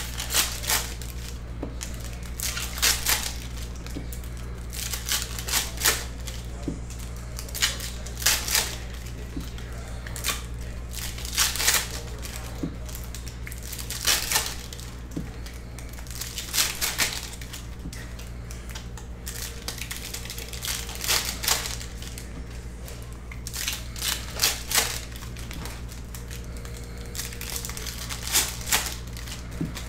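Panini Donruss Optic basketball card packs and cards being handled: foil wrappers crinkling and cards sliding against each other in short rustling bursts every second or two, over a steady low hum.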